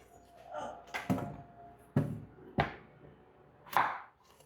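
Kitchen knife cutting peeled potatoes into chunks on a cutting board: four separate chops.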